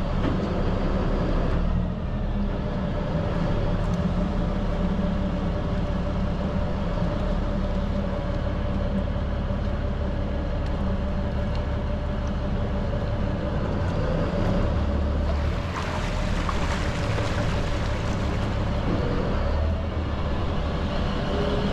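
A fire rescue boat's engines run low and steady as the boat is manoeuvred into its slip to dock. A rushing hiss swells for a few seconds past the middle.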